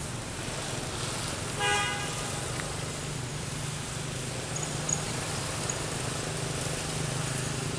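Steady low hum of road traffic, with one short vehicle horn toot a little under two seconds in.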